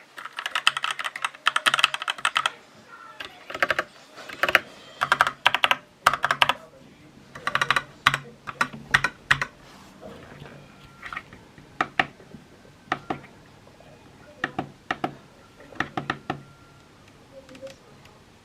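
Typing on a Corsair K70 Core mechanical keyboard: fast runs of keystrokes through the first half, then slower, separate key presses.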